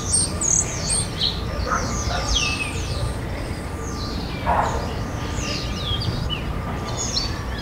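Many small birds chirping at once in a general ambience, with short high calls and quick pitch glides overlapping each other, over a low steady rumble.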